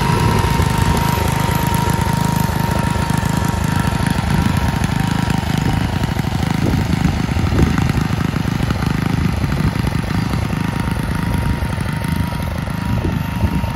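Ride-on lawn mower's small engine running steadily while cutting grass, with a steady high whine over the low engine noise. It grows slightly fainter toward the end as the mower moves away.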